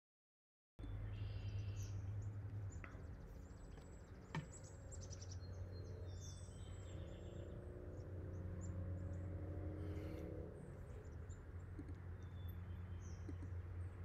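Small birds chirping over a steady low hum, with one sharp click about four seconds in. The sound cuts in abruptly just under a second in.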